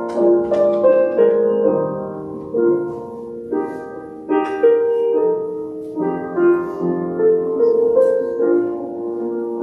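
Slow instrumental keyboard music: a melody over held chords, each note starting clearly and then dying away, with no singing.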